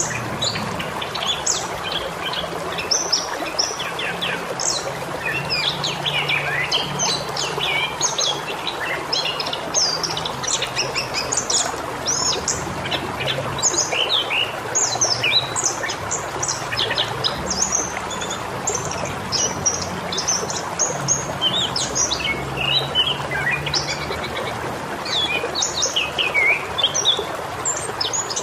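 Many small birds chirping and twittering in quick, overlapping calls over the steady rush of flowing water.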